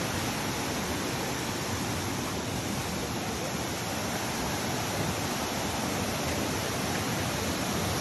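Waterfall cascading down broad rock slabs: a steady rushing of water without breaks.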